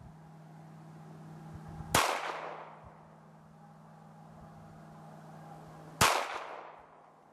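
Two shots from a .380 Hellcat pistol, about four seconds apart, each followed by a short echoing tail.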